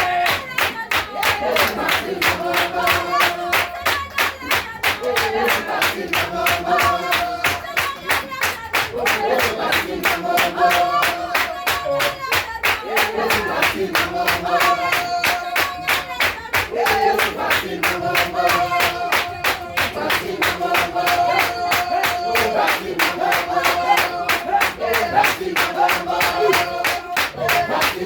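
Upbeat gospel music with a fast, steady beat and held melodic notes.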